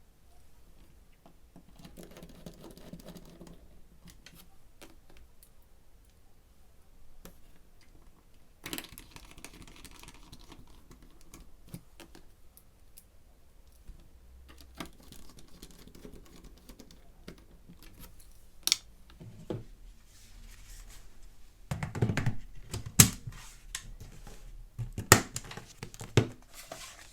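Hands working on a Dell Inspiron 1018 netbook during reassembly: scattered faint clicks and rustles, then a run of sharper, louder plastic clicks and knocks in the last few seconds.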